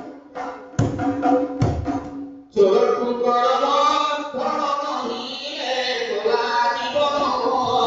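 A few hand strokes on a two-headed barrel drum, some with a deep thump. About two and a half seconds in, a man starts singing loudly into a microphone in a chanting folk style.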